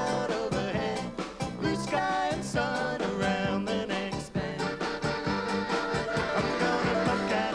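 Live band playing a song, with a man singing lead over a steady drum beat.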